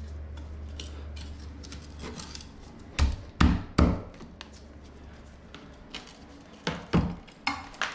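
Sharp knocks and clunks of a large-format tile being pulled off the wall and handled: three quick ones about three seconds in and a few more near the end, over a steady low hum. The tile came away easily from thinset that had not fully cured.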